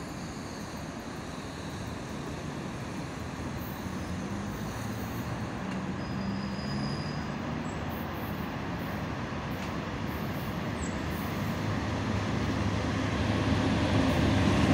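VL80K two-section electric freight locomotive approaching with a long freight train: a steady low hum and rumble that grows steadily louder as it nears.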